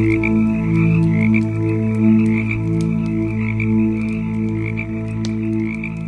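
Campfire crackling in frequent sharp pops and snaps, under a steady layer of low humming tones that swell and fade slowly, with a pulsing chirring higher up.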